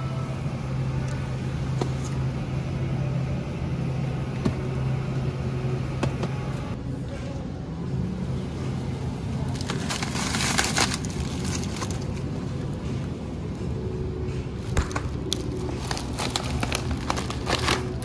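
Plastic bag of frozen whole-kernel corn crinkling as a hand takes it off a freezer shelf about ten seconds in, then again in a run of crackles near the end as it is set into a shopping cart. A steady low hum sits underneath, strongest in the first half.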